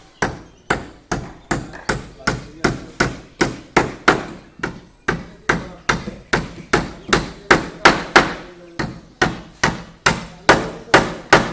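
Hammer blows on a construction job, struck in a steady rhythm of about two and a half sharp strikes a second.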